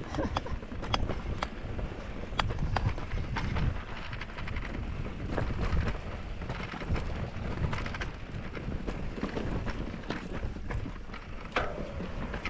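Wind buffeting the microphone over the rumble of mountain bike tyres on a dirt trail at speed, with frequent sharp clicks and rattles from the bike jolting over bumps.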